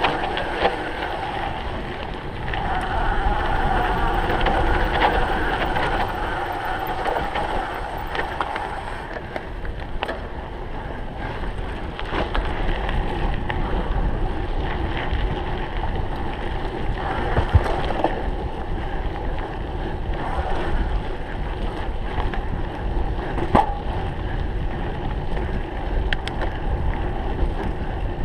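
Wind noise on the microphone over a cyclocross bike rolling and rattling across rough ground, with two sharp knocks in the second half.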